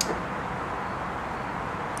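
A single light click at the start, then a steady background hiss with no other event.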